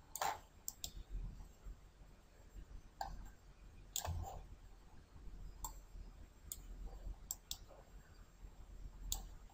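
Computer mouse buttons clicking now and then, about ten short, sharp clicks spaced irregularly, over a faint low hum.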